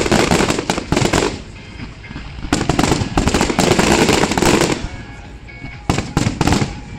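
Aerial fireworks bursting and crackling in three salvos: one through the first second or so, a longer one from about two and a half to nearly five seconds in, and a short one near the end.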